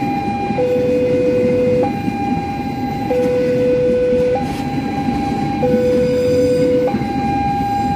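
Railway level-crossing alarm sounding a two-tone warning, alternating between a low and a high tone about every 1.25 seconds, over the steady rumble of empty flat freight wagons rolling past.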